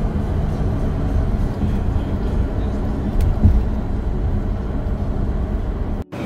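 Steady low road rumble of the Rialta motorhome driving, with a brief thump about three and a half seconds in. The sound cuts out for an instant near the end.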